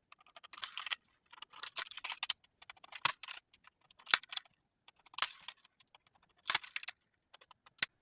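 Small screws being backed out of a plastic toy controller's housing with a screwdriver: a run of irregular clicks and short scratchy scrapes.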